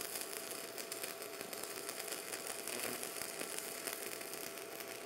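Stick-welding arc from a 4 mm arc-welding rod on the WR0-250 arc welder, crackling and sizzling steadily as the rod melts smoothly into the steel plate. A faint steady whine sits under the crackle.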